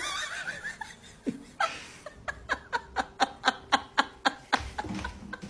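A person laughing off-camera in a run of short, rapid bursts, about four a second, for a couple of seconds.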